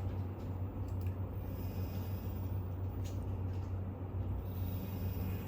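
Steady low electrical hum with a single faint click about three seconds in.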